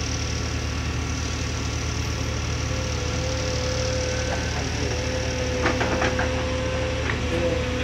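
Heavy diesel engine of a Cat 340D excavator running steadily. A thin steady whine comes in about three seconds in, and a few short clicks sound near the end.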